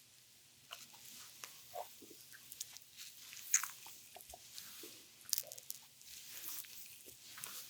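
Oiled hands sliding and pressing over a bare belly during an abdominal massage: faint, irregular wet clicks and squelches of skin on skin.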